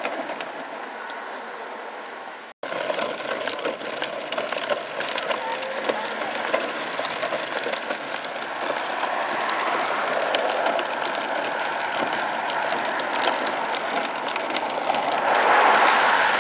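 Hard plastic wheels of a kids' pull wagon rolling over a rough concrete sidewalk, giving a steady clattering rattle, louder near the end. It breaks off for an instant about two and a half seconds in.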